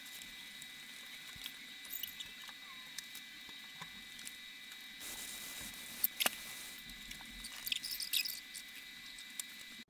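Faint steady hiss with a thin high whine, broken by scattered small clicks and short scratchy rustles, the busiest stretch about six to eight seconds in.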